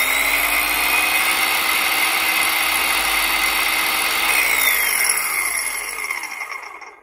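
Ozito 18 V PCX cordless circular saw running free with no load: the motor and blade whine at full speed, then about four seconds in the trigger is let go and the whine falls in pitch as the blade spins down to a stop near the end.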